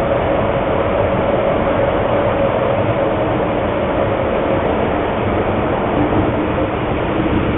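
Steady, continuous background noise heard through a telephone line, with a faint steady hum in it.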